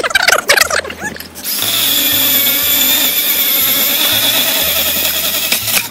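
Hitachi electric chainsaw running with a steady high whine for about four seconds as it cuts bamboo, stopping abruptly near the end. Voices talk and laugh in the first second and a half.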